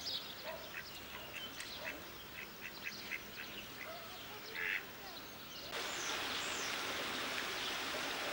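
Ducks calling in short quacks, with a quick run of them a couple of seconds in and a louder one shortly after. About six seconds in, a steady hiss takes over.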